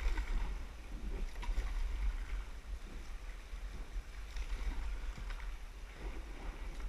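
Water rushing and splashing around a kayak and its paddle as it moves through a shallow riffle, over a steady low rumble.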